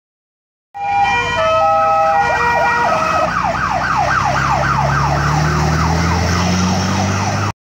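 Fire engine siren, first alternating between two steady tones, then switching to a fast rising-and-falling yelp, about three to four sweeps a second. Underneath, the truck's engine pulls, rising in pitch as it accelerates past. It starts suddenly about a second in and cuts off suddenly near the end.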